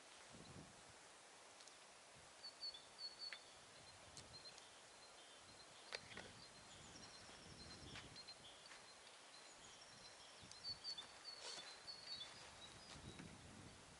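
Near silence with faint birdsong: a small bird gives short runs of quick high chirps a few times, with a couple of soft clicks.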